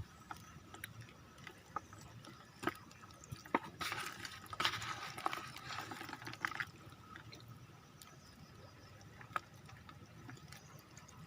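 Water splashing and dripping as a hand net is scooped through muddy floodwater, with scattered small knocks; the splashing is busiest from about three and a half to seven seconds in.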